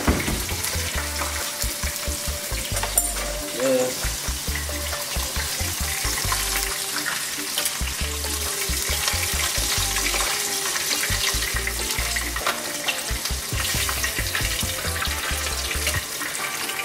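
Flour-dusted red-eared slider turtle pieces frying in hot grease in a pan: a steady, dense crackling sizzle.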